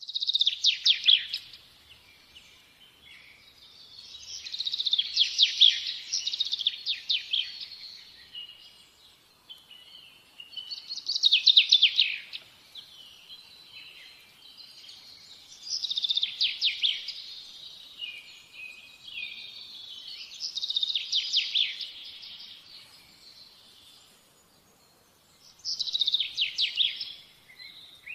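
A songbird singing: phrases of fast trilled notes every four to five seconds, with softer twittering between them.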